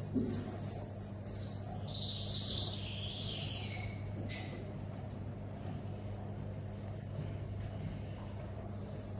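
Lovebirds chirping, a cluster of high chirps between about one and four seconds in, with a single sharp click just after, over a steady low hum.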